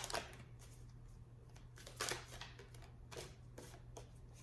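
Tarot cards being shuffled and handled: a few separate soft flicks and rustles of the cards, over a low steady hum.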